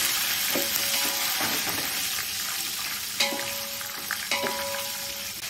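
Hot oil sizzling steadily as a tempering of mustard seeds, dals and whole red and green chillies fries in a large metal pot, stirred with a spatula that scrapes the bottom. Twice, at about three seconds and past four seconds, the spatula knocks the pot and it rings briefly.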